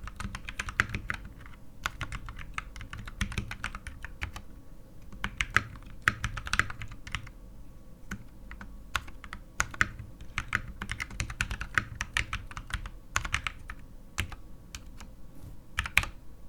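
Typing on a KT87 tenkeyless mechanical keyboard with lubed and filmed Durock T1 tactile switches and DSA-profile keycaps: quick runs of key presses, with short pauses about four and eight seconds in.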